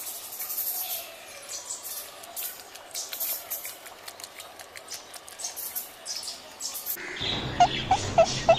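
A beagle lapping milk from a stainless-steel bowl: rapid, irregular wet laps and tongue clicks. Near the end a quick run of about five short, high chirps stands out above the lapping.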